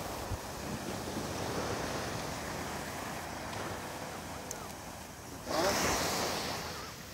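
Ocean surf washing on the shore, with some wind on the microphone. A louder rush of noise comes in about five and a half seconds in and lasts a second or so.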